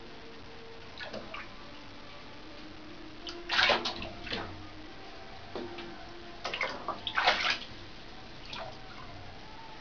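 A cat splashing through shallow water in a bathtub as it paws and steps after small fish: irregular splashes, loudest about three and a half seconds in and again around seven seconds, with smaller ones near the start and end.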